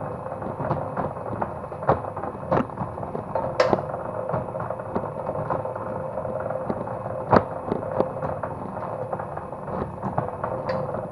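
Homemade wire-stripping machine running: a steady mechanical hum with irregular clicks and knocks throughout, and two sharper knocks about a third of the way and two thirds of the way in.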